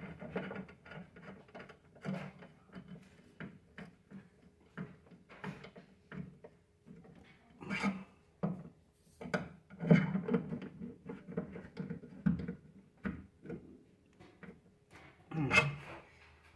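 Needle-nose pliers tightening a screw on a rod holder fixed to the side of an aluminium boat: irregular small clicks, scrapes and knocks of metal on metal, with a few louder clusters.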